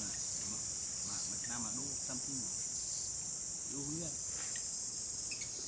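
Steady, high-pitched chorus of insects, a continuous shrill drone.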